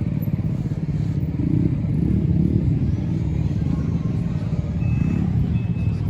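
Lambretta scooters' two-stroke engines running together, a dense, rapidly pulsing engine note. From about five seconds in, a short high electronic beep repeats at even intervals.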